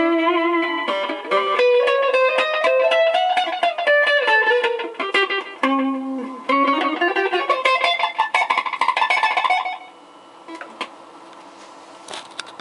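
Guitar played through an Ibanez Soundtank digital delay pedal: a quick run of plucked melody notes that stops about ten seconds in. After it only a faint steady hiss remains, with a click or two.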